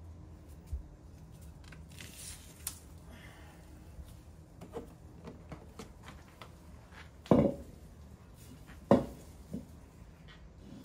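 Plant pots being handled on a tiled floor: scattered light clicks and knocks, then two loud short thuds about seven and nine seconds in as pots are set down, with a lighter knock just after.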